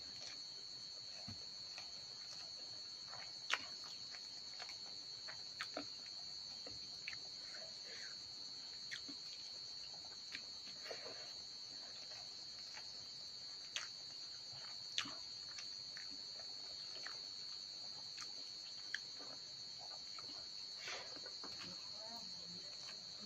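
Steady, high-pitched chirring of crickets, with scattered soft clicks and smacks of rice being eaten by hand from a metal bowl.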